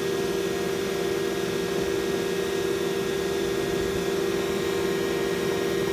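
Gas-fired melting furnace of a tap-casting machine running steadily while heating up to melt copper: a constant hum over an even rushing noise.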